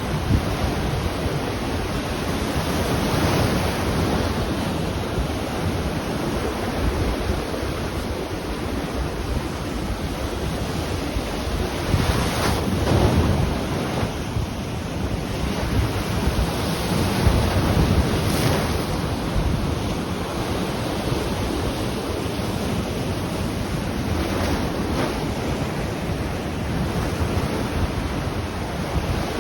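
Ocean surf washing onto the shore in a steady rush, swelling in a few louder surges as waves break, with wind rumbling on the microphone.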